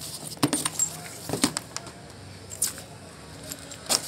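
Hands rummaging in a children's fabric school backpack and moving a plastic pencil case inside it: a few separate sharp clicks and knocks over soft rustling.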